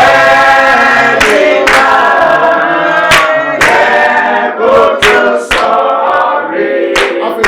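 A group of voices singing a gospel worship song together, mostly unaccompanied, with long held notes.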